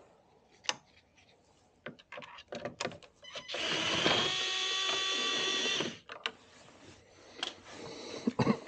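Screwdriver backing a screw out of a water softener's control valve: a few light clicks as the bit seats, then a steady whirring whine for about two and a half seconds that cuts off suddenly, followed by scattered clicks of handling.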